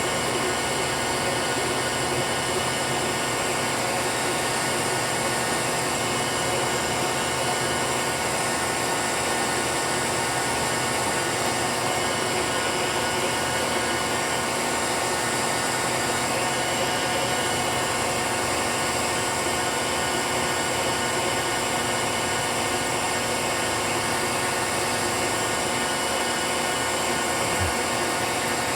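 A CNC milling machine's spindle driving a 1-inch roughing end mill through aluminium, a steady, unchanging machining whine full of fine tones.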